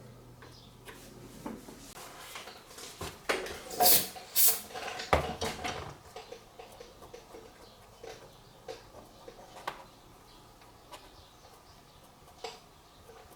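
Hard small objects being handled and set down on a work surface: scattered clicks and knocks, with a run of louder clatters about three to six seconds in.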